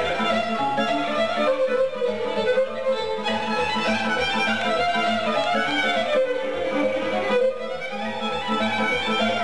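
Violin playing a melody with sliding notes in an instrumental break of a Romanian folk song, over a steady beat from the backing band.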